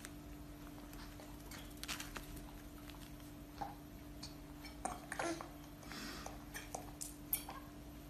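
Faint, scattered soft clicks and ticks from a cockatiel's beak nibbling at fingers while its head is scratched, over a steady low hum.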